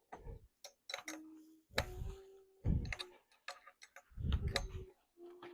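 Clicks, taps and a few dull knocks of bicycle parts and tools being handled during assembly, with several short pitched squeaks or hums between them.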